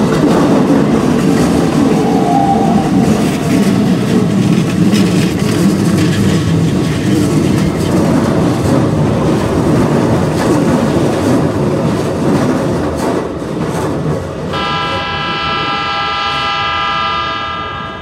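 A red Keikyu 1500-series electric train passes close by over a level crossing, its wheels clattering over the rail joints, and the noise eases off after about thirteen seconds. About fourteen seconds in, a train horn sounds one steady blast lasting about three and a half seconds.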